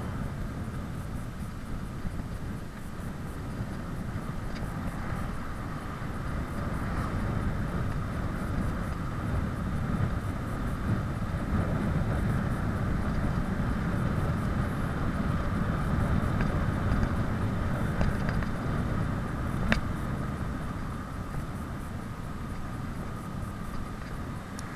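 Wind rushing over the microphone and road noise from a bicycle descending a mountain road at speed, growing louder through the middle, with one sharp click near the end.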